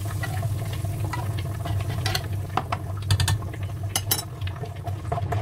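Canned chopped tomatoes poured into a pan of melted margarine and stirred with a spoon: scattered clicks and scrapes against the pan, over a steady low hum.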